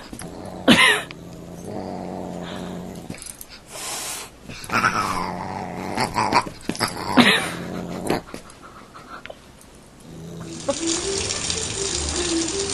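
A pug and a Siamese cat play-fighting, with growling and a few short pitched calls, one sliding downward. About ten seconds in, a kitchen tap starts running steadily.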